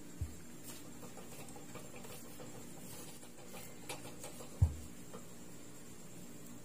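Wooden rolling pin rolling over chilled pie-crust dough on a countertop: soft scrapes and light taps, with one dull thump about halfway through.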